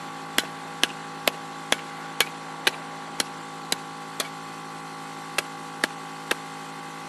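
A row of short, sharp knocks or taps, about two a second for the first three seconds, then sparser and stopping a little after six seconds, over a faint steady hum.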